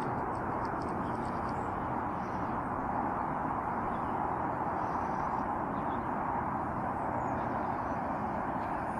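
Steady outdoor background noise: an even rushing sound with no distinct events, heard from an open hilltop.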